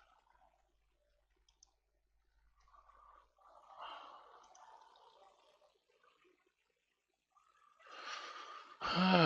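Faint room noise with soft rustles and a single small click; near the end a man lets out a breathy exhale that turns into a voiced sound.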